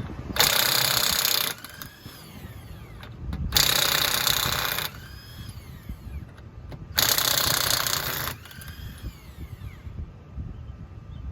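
Impact wrench hammering lug nuts loose in three bursts of about a second and a half each, its motor whining down in pitch after each burst.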